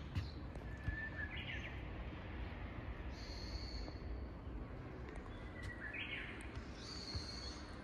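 Japanese bush warbler (uguisu) singing its 'hoo-hokekyo' song twice, about five seconds apart: a held whistle followed by a quick rising flourish. Another bird gives thin, high, drawn-out notes in between.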